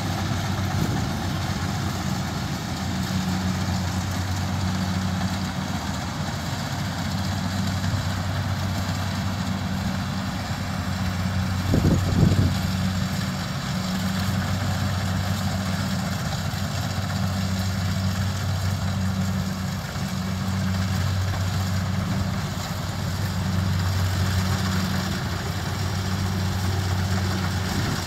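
Combine harvester engines running steadily under load while cutting rice, the nearer machine a Kubota, a constant low engine hum. About twelve seconds in there is one short, louder burst.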